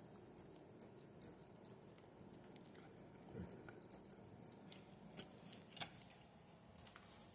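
Faint, irregular small clicks and smacks of an Alaskan malamute licking, a few to the second.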